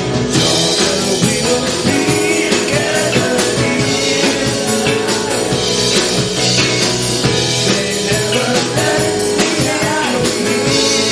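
Live blues band playing with electric guitars, keyboard and drum kit, with a woman singing.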